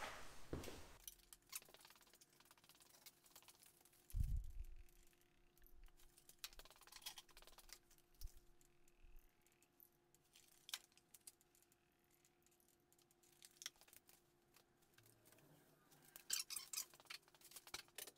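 Mostly quiet, with scattered faint clicks and knocks of plastic motor-oil bottles and the oil filler cap being handled at an open engine bay. There is a dull thump about four seconds in and a cluster of clicks near the end, over a faint steady hum.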